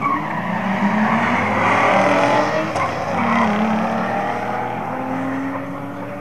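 Two drag-racing cars accelerating hard down the quarter-mile strip. Their engine notes climb in pitch, drop back at gear changes and climb again, loudest about two seconds in, then fade as the cars pull away.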